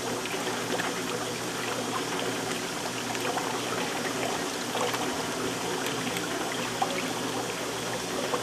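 Liquid soap mixture churning and swirling in a large pot, a steady watery sloshing with a faint hum underneath.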